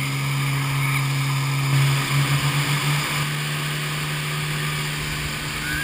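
Motorboat engine running at speed, a steady low drone, with the rushing hiss of the wake and spray. About two seconds in, the sound pulses in quick beats for about a second before settling back to the steady drone.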